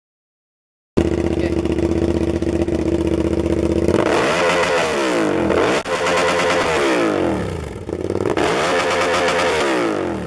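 Hyosung GT650R (Naza Blade) V-twin running through an SC-Project CRT exhaust. It starts about a second in with a steady idle, then is revved three times, the pitch rising and falling each time, and settles back toward idle near the end.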